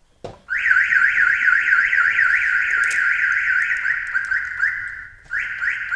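Aftermarket car alarm siren going off: a loud, fast warbling tone, about four sweeps a second. Near the end it changes to a slower pattern, breaks off briefly, then starts again.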